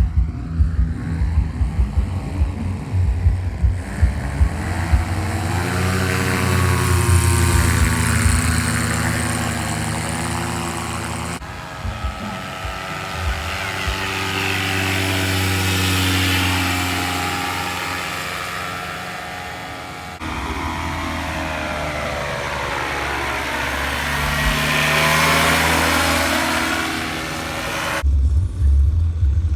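Paramotor's engine and propeller droning as it flies past, the pitch rising and falling with each pass, several times over. Wind buffets the microphone at the start and near the end.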